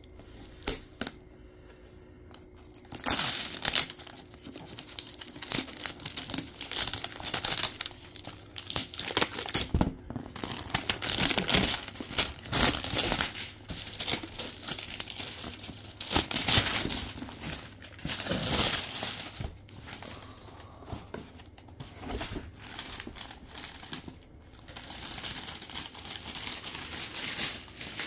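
Clear plastic shrink-wrap crinkling and tearing as it is slit with a knife and pulled off a cardboard-boxed pickguard, in irregular loud bursts from about three seconds in; a few light clicks before that.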